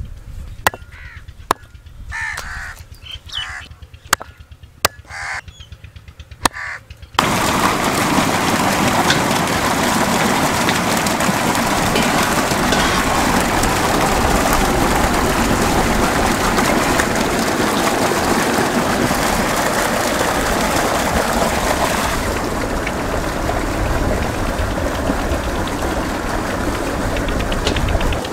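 A few short bird calls and sharp clicks. About seven seconds in, a heavy stream of water suddenly starts gushing from a pipe and splashing into steel basins, a loud, steady rush.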